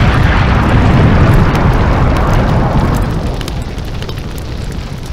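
Intro sound effect of a loud, rumbling fiery blast with light crackling, dying away over the last two seconds.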